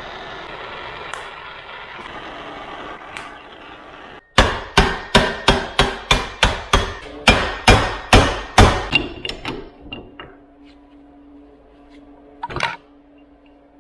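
A hammer beating on a socket set against a U-joint cap of a double cardan drive shaft clamped in a vise, a quick run of about fifteen blows at roughly three a second, driving the cap out of the yoke once the injected plastic retainer has been heated. A steady hiss fills the first few seconds, and there is one more single knock near the end.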